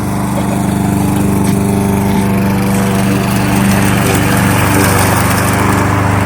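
Kohler XT-675 single-cylinder engine on a push lawnmower running at a steady speed while mowing, with a hiss from the blade and grass that grows a little stronger a couple of seconds in.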